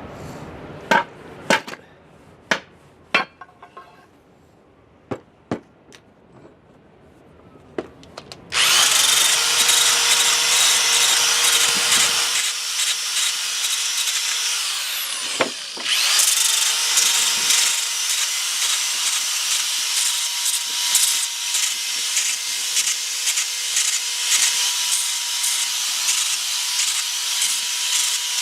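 Several sharp knocks, then an electric sander starts and runs loudly with a steady whine, sanding down a wooden adze handle to fit the head. It cuts out briefly about halfway, then starts again.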